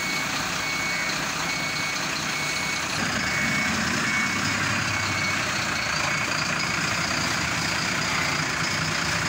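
A heavy cargo truck reversing: its reversing alarm beeps at a steady high pitch about every 0.6 s and stops about five seconds in, over the diesel engine running, which grows louder about three seconds in.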